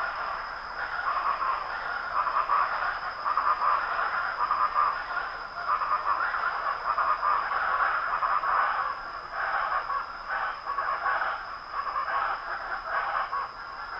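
Early-morning rural ambience: chickens clucking in a continuous, irregular chatter, over a constant thin high-pitched tone.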